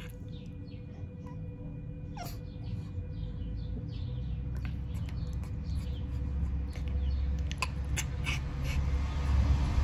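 A pug whining softly in short high whimpers, one longer falling whine about two seconds in, while a low rumble grows louder toward the end.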